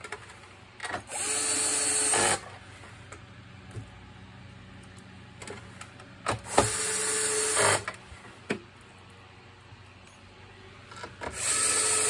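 Electric screwdriver running in three short bursts of about a second each, driving in screws, with a steady whine that starts and stops sharply; small plastic clicks and knocks in between.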